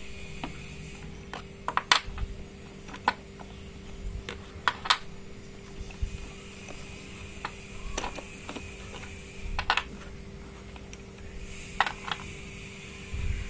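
Sticks of coloured chalk clicking and clattering against each other as they are handled in a cardboard box: irregular light taps, with sharper clusters of clicks a few times. A steady low hum sits underneath.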